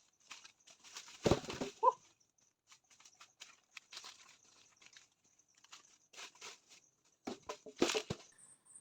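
Scattered rustling and small clicks with two louder clattering bursts, one about a second in and one near the end, over a faint steady high-pitched hum.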